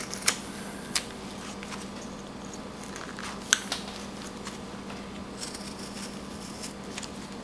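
Carving knife whittling a small wood blank: a few sharp clicks of the blade cutting and chips snapping free, with a soft scraping of the blade near the end. A faint steady hum lies underneath.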